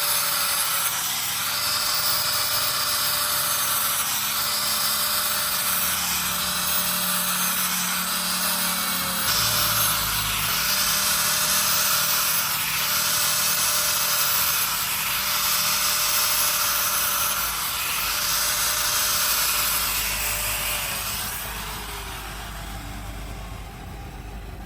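An electric power tool, such as a grinder or sander, runs steadily against the workpiece in repeated passes that swell and fade about every two seconds. Near the end it is switched off and its motor winds down.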